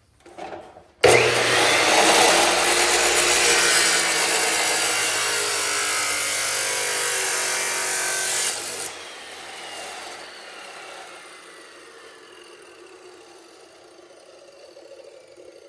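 Bauer abrasive metal chop saw starting up suddenly about a second in and grinding through a piece of rebar for about seven seconds, then released and winding down, its pitch falling slowly.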